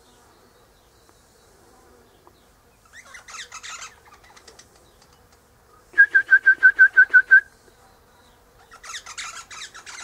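Eastern rosella calling: a short scratchy burst about three seconds in, then a loud run of about nine quick, identical whistled notes, and another scratchy burst near the end.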